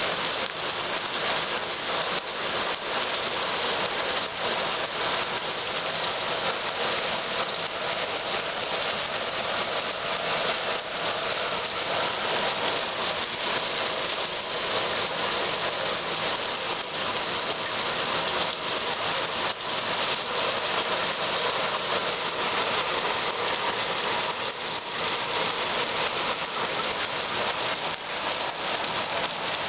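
Thunderstorm rain falling steadily, a dense, even hiss of drops.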